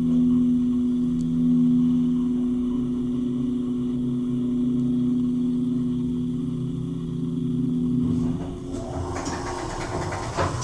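Hydraulic elevator pump motor running with a steady, musical hum of several held tones while the car travels up; the hum stops about eight seconds in as the car arrives, followed by a short spell of clatter.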